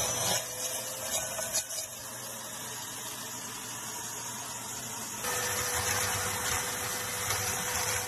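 Vacuum cleaner running steadily with a whine, its hose sucking up coloured sand, with uneven bumps in the first two seconds. It drops slightly, then steps up louder again with the whine about five seconds in.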